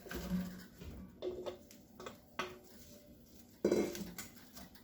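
Sliced onions being added to a skillet of melted butter, with four or so separate clatters and knocks of kitchenware against the pan; the loudest knock comes a little under four seconds in.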